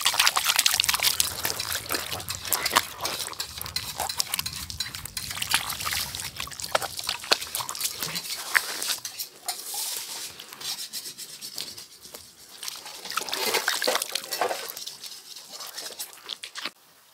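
Pork sizzling and crackling in hot fat: a dense, irregular spatter of small pops that eases in the middle, swells again and then stops abruptly near the end.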